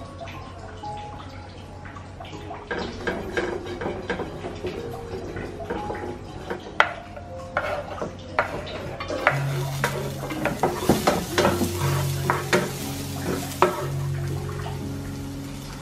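Knife chopping an onion on a cutting board, a run of sharp taps, then from about nine seconds in chopped onion sizzling in hot oil in a frying pan while a wooden spatula knocks and scrapes against the pan.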